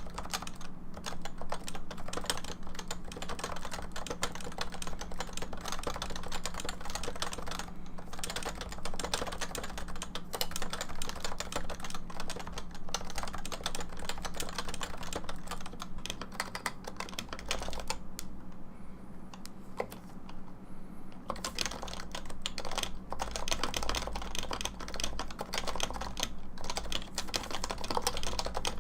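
Continuous fast typing on a computer keyboard, a dense stream of key clicks and bottom-outs, with a pause of a few seconds about two-thirds of the way through. A faint steady hum sits underneath.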